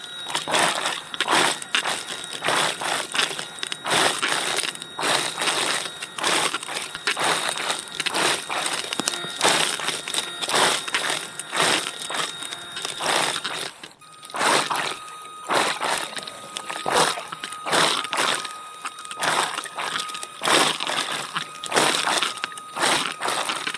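Underwater, a diver propulsion scooter towing a diver through a cave: dense, irregular crackling and rushing of water against the camera, over a thin steady whine. About halfway through there is a brief lull, and the whine steps down to a lower pitch.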